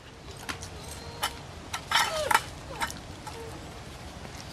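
Metal muffin tin clattering and scraping on concrete as a dog noses tennis balls out of its cups to get treats underneath: a scatter of short knocks and clinks, the loudest cluster about two seconds in.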